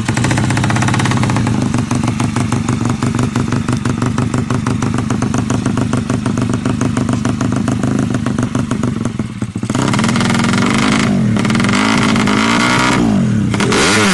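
Drag-racing motorcycle engine held at high revs with a rapid rhythmic pulsing, the sound brightening about ten seconds in, then the revs falling away near the end.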